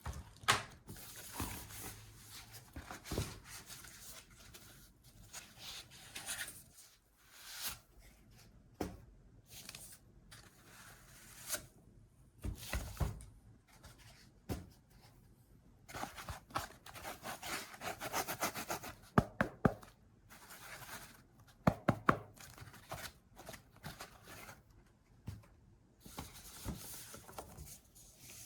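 Packaging handled during a keyboard unboxing: irregular rustling, tearing and rubbing of paper or plastic, with scattered taps and knocks and a quick run of clicks in the middle.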